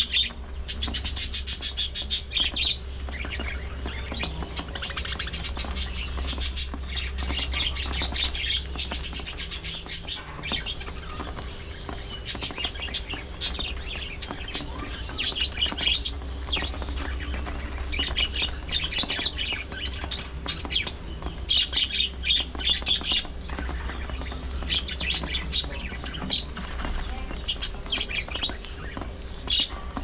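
A colony of budgerigars chirping and chattering loudly, in repeated bursts of sharp chirps and squawks.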